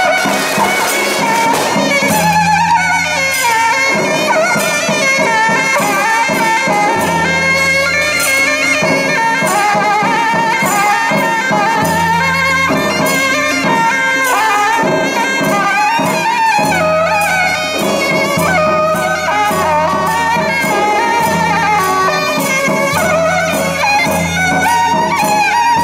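Taiwanese temple-procession music: shrill reed wind instruments play a wavering melody over a dense, steady clatter of cymbals and percussion, with low sustained notes underneath.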